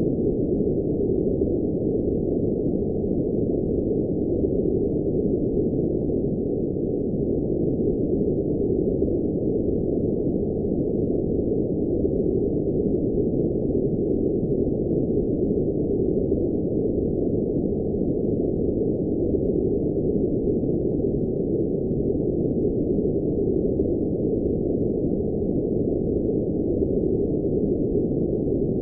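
Steady synthetic noise, labelled blue noise, heard as an even, muffled hiss with nothing above about 1 kHz and no change in level.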